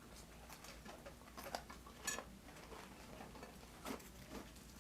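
Faint eating sounds during a quiet pause: a few scattered soft clicks and smacks of chewing and of food handled at the table, over a low steady hum.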